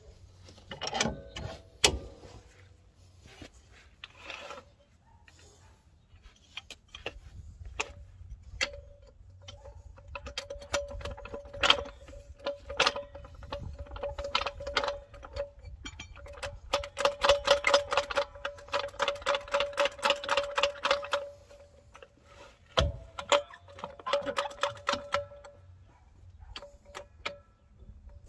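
Metal hand tools and suspension parts clinking and knocking at a car's front steering knuckle while the shock bolt is refitted, with a few sharp louder knocks. More than halfway in comes a run of rapid, even clicking lasting several seconds.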